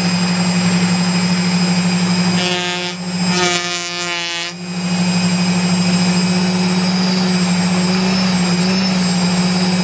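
Brushless motors of a DJI F550 hexacopter spinning without propellers, a steady electric motor hum with a whine in its overtones. Between about two and a half and four and a half seconds in, an extra wavering tone rises and falls over it.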